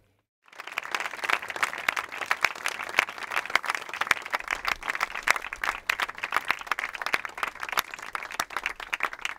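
A small crowd applauding by hand, many overlapping claps, beginning suddenly about half a second in and keeping up steadily.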